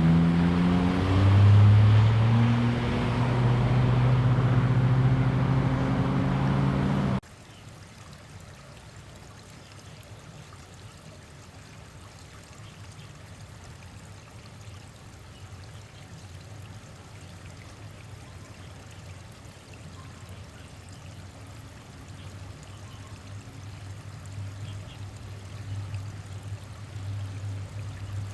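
A vehicle engine accelerating, its pitch rising and then holding steady, until it cuts off abruptly about seven seconds in. After that there is a much quieter steady rushing noise, with a low hum slowly building near the end.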